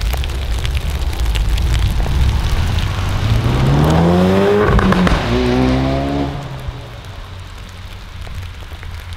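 Ford Focus RS's turbocharged four-cylinder engine accelerating past on a wet road. Its note climbs in pitch, drops sharply about halfway through as the car goes by, climbs again briefly and then fades away.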